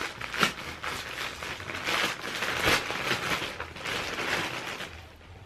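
Paper crinkling and tearing by hand as a present is unwrapped: irregular rustles, loudest midway, dying down near the end.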